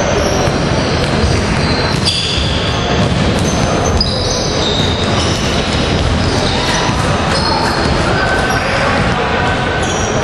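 Basketball game sound in a large, echoing hall: a ball bouncing on the hardwood court around a free throw, with voices and short high squeaks over steady hall noise.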